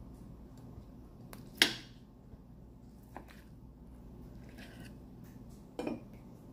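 Metal fork cutting into soft baked stuffed eggplant and clicking against the plate: a sharp click about one and a half seconds in, a light scrape, and a duller knock near the end, over a low steady hum.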